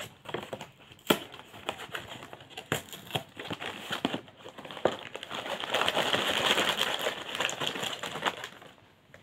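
An Orion Choco Pie cardboard box is handled and opened, with scattered sharp clicks and tearing. From about halfway in there is a stretch of dense crinkling as the plastic-wrapped cakes slide out of the box onto the table.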